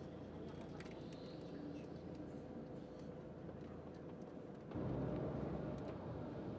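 Low, steady rumble of a moving tour bus heard from inside the cabin, with a faint steady hum; it grows suddenly louder about three-quarters of the way through.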